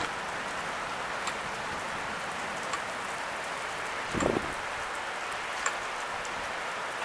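Steady rain falling, an even hiss with scattered sharp drip ticks, and a brief low buffet of wind on the microphone about four seconds in.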